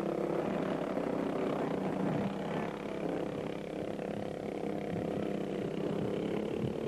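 Motorcycle engines running steadily, a continuous drone with no sharp events.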